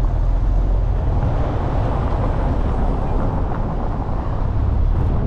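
Steady low rumble of a car being driven, engine and road noise running evenly with no distinct events.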